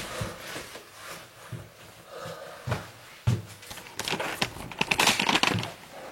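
Handling noises: scattered light knocks, a thud about three seconds in, then a stretch of crackly rustling from about four seconds in.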